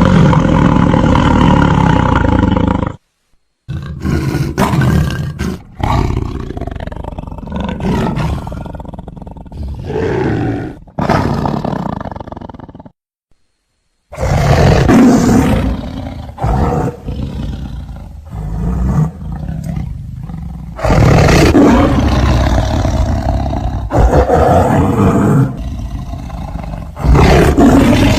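Tiger roaring and growling in a series of loud, low calls, with two brief silent breaks where clips are joined.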